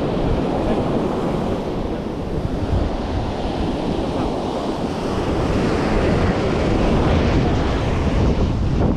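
Sea surf breaking and washing up a sandy beach, a steady rushing noise, with wind buffeting the microphone.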